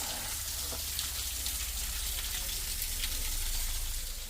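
Small waterfall spilling off a rock ledge: a steady splashing patter of falling water with scattered separate drips.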